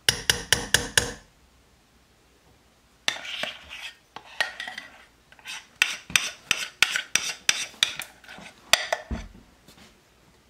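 A big slotted spoon tapping about six times in quick succession against a bowl, then after a short pause scraping and clinking repeatedly against the bowl and slow cooker crock as thick cake batter is spooned in.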